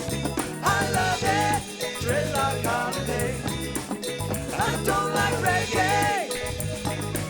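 A band playing a reggae song, with a steady bass-and-drum rhythm and two wavering melodic phrases over it.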